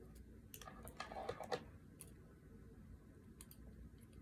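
Faint scattered clicks and taps of multimeter test leads being handled and touched to the wires of a small circuit, several bunched about a second in.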